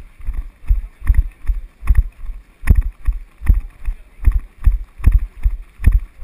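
Running footsteps of the camera wearer, each stride jolting the GoPro and giving a heavy thud about two and a half times a second, in a steady rhythm.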